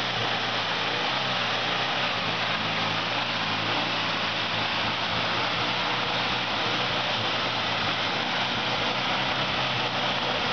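Suzuki Vitara 4x4 engine running at a steady speed off-road, under a constant rushing noise.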